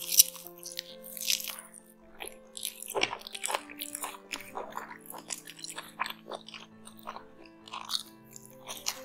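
Close-miked eating of hariyali mutton biryani by hand: a sharp bite just after the start, then wet chewing, smacking and crunching clicks. Soft background music with held notes plays underneath.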